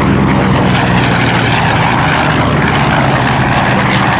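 Vought Corsair (Goodyear-built FG-1D) flying past, its 18-cylinder Pratt & Whitney R-2800 Double Wasp radial engine and propeller giving a loud, steady drone.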